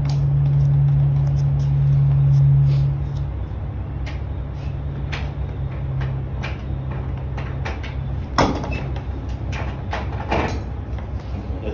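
A steady low engine hum, louder for the first three seconds, with scattered knocks and clicks as load-securing gear is handled, and one sharp knock about eight and a half seconds in.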